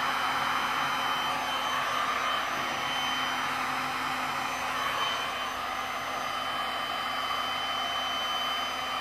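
Heat gun running steadily: a constant rush of blown air with a thin high whine over it.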